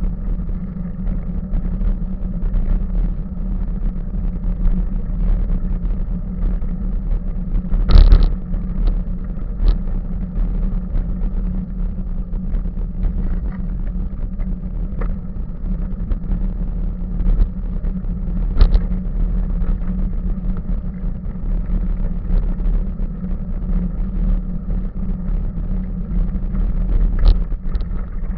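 Bicycle rolling over a gravel path: a steady rumble of tyres and frame vibration carried through the camera mount, with a loud knock over a bump about eight seconds in and two smaller knocks later.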